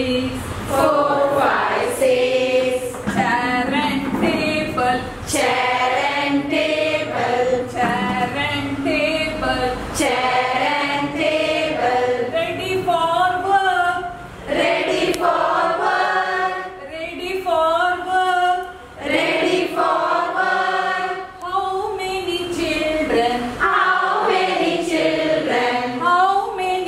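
A group of women singing together in unison, an action song led by one voice.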